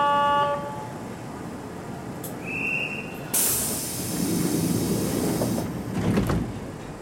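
Kintetsu electric train's sliding doors closing: a brief high tone, then a loud hiss of compressed air lasting about two seconds, ending in a thud as the doors shut about six seconds in.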